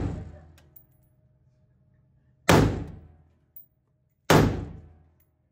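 Two gunshots, just under two seconds apart, each with a short echoing decay in an indoor shooting range. The tail of an earlier shot fades out at the start.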